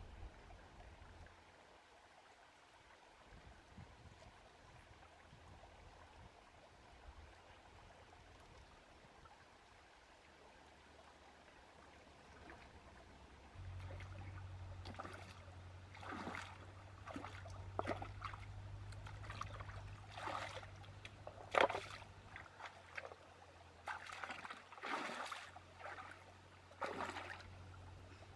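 Faint trickle of a shallow rocky stream, then, from about halfway in, feet wading through the water with a string of irregular splashes.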